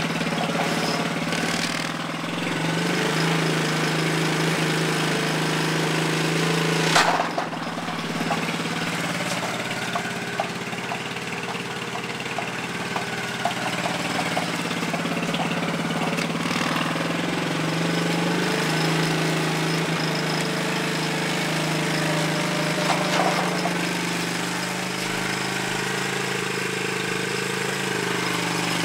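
1992 Suzuki King Quad 300's air-cooled single-cylinder four-stroke engine idling steadily. A single sharp knock comes about a quarter of the way through.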